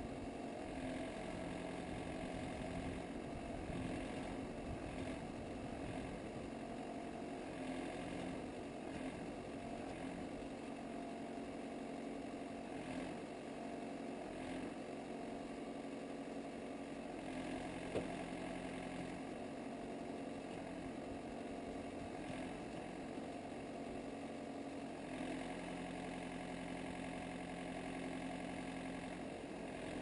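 Wood-Mizer LT70 band sawmill's engine running steadily while the saw head is parked and not cutting, with a single sharp click a little past halfway.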